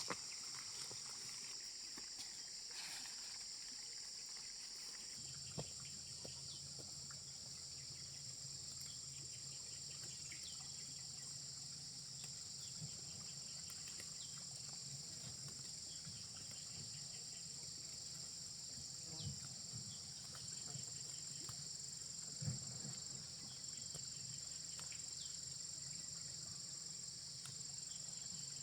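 Insects singing in a steady, high-pitched chorus. A low hum joins about five seconds in, with a few faint clicks scattered through.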